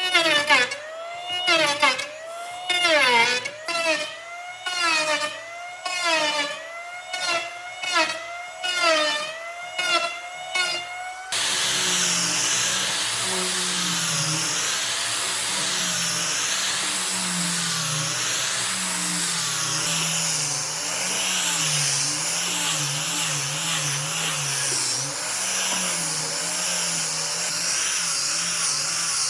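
Power tool working wood, its pitch dipping and rising in repeated strokes for about the first eleven seconds. After an abrupt cut it runs steadily, its pitch wavering slightly.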